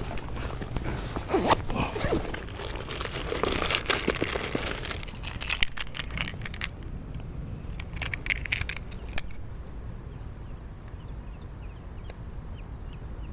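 Rustling, crinkling handling noise with irregular clicks, made while a freshly caught largemouth bass and fishing gear are handled close to the microphone. It is densest in the first half and thins to scattered clicks later.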